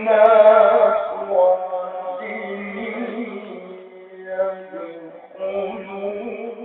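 A man reciting the Quran in a melodic chant, drawing out long, ornamented held notes. The voice is strongest at the start, eases off in the middle, and swells again near the end.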